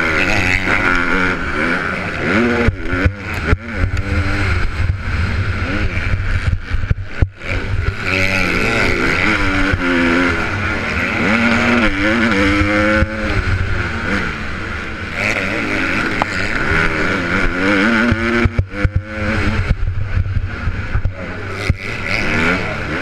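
Onboard sound of a Honda CRF150R four-stroke motocross bike at race pace, the engine revving up and falling back over and over through gear changes, jumps and turns. A few short sharp drop-outs break the sound.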